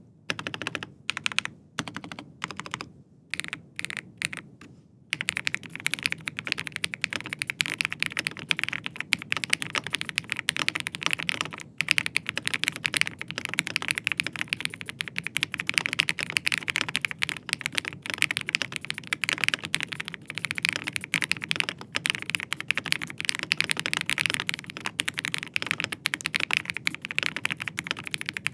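Typing on a GeekBoy keyboard: a few separate bursts of key presses with short pauses for about the first five seconds, then fast, continuous typing.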